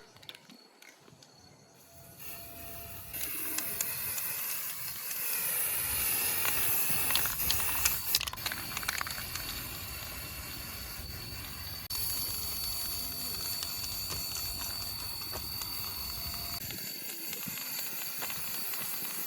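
Steady hissing spray that starts about three seconds in, with a thin high whine joining it a few seconds later.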